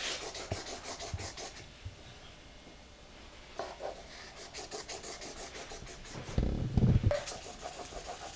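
A toddler scribbling on paper with a colouring pencil and a marker on a wooden tabletop: spurts of quick, scratchy strokes with pauses between them. A low thump about six and a half seconds in is the loudest sound.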